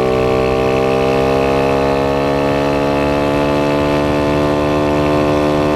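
Kawasaki KLX110 pit bike's single-cylinder four-stroke engine held at full throttle with an open exhaust and no air filter, its pitch climbing slowly as the bike gathers speed.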